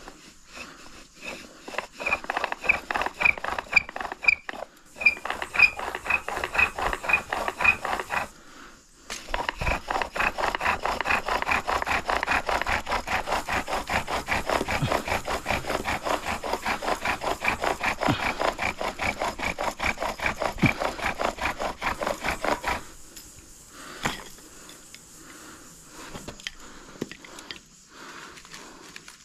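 Bow drill in use: the wooden spindle grinds and squeaks in the fireboard's notch with each back-and-forth stroke of the bow, at first about three strokes a second, then after a short pause a faster, steady run of strokes lasting about fourteen seconds before it stops. The friction is raising an ember, which smokes once the drilling stops.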